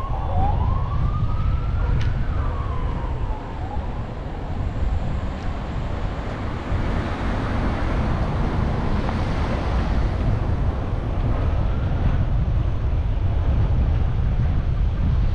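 A siren wails, rising and then falling over the first few seconds, with a fainter sweep near the end, over steady rumbling road and wind noise from a moving car.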